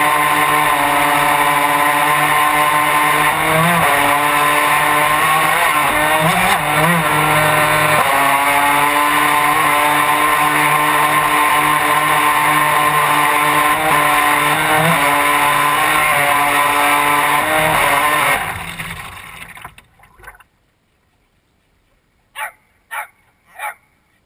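RC boat motor running with a steady whine that wavers slightly in pitch. It winds down and stops about three-quarters of the way in. Three short sounds come near the end.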